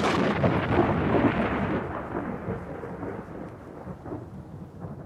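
A loud crash with crackling at first, then a rumble that fades away over several seconds, the high end dying out first.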